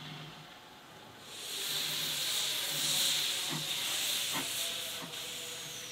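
Narrow-gauge steam locomotive venting steam: a loud hiss starts about a second in, holds for a few seconds and fades near the end, with a couple of faint knocks in the middle.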